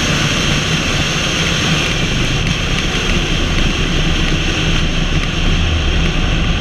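Vehicle driving at steady speed: continuous wind rush on an outside-mounted camera's microphone over a low engine and tyre drone.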